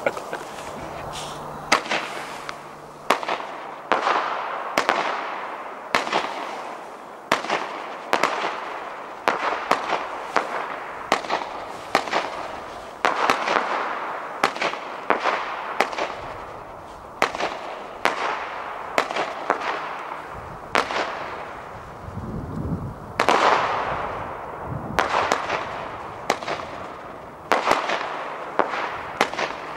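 El Gato Summer 25-shot 20 mm fireworks cake firing its shots one after another, about one a second, each a sharp bang trailed by a fading rush of noise.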